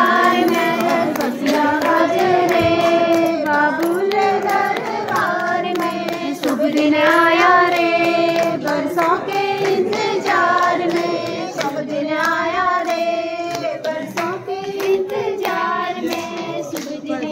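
Women singing a traditional Hindi wedding folk song together in a steady, unbroken melody, with scattered sharp clicks over the singing.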